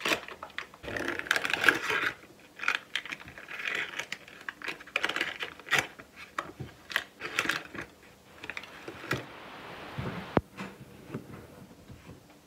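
Paper wrapper of a block of lard crinkling and rustling as chunks are cut off, with scattered clicks and scrapes of a knife and spoon against a ceramic bowl of rice flour. One sharp click stands out about ten seconds in.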